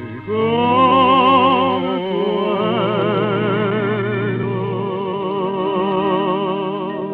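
A male tango singer holds the song's final long notes with a wide vibrato over orchestral accompaniment, closing the song.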